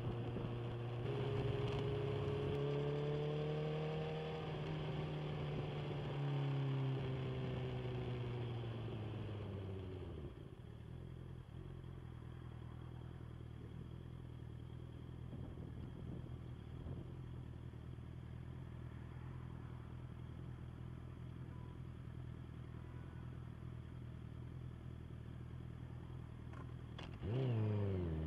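Inline-four sport motorcycle running steadily on the move with a rush of wind, its note falling away as it slows about ten seconds in, then settling into a low steady idle. Near the end the engine gives a sudden short, louder rev whose pitch sweeps quickly down.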